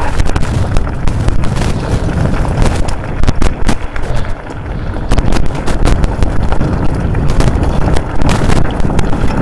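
Mountain bike riding fast over a rough track: wind buffeting the microphone with a heavy rumble, and the tyres and frame rattling and clattering with many sharp knocks.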